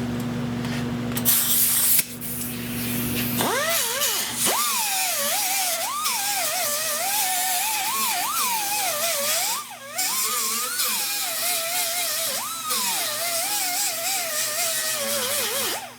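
Grinder dressing down a fresh weld on a door panel. Its motor whine keeps dipping and rising in pitch as the disc is pressed into the metal and eased off, over a steady grinding hiss. The first few seconds are a steadier hum before the wavering whine sets in.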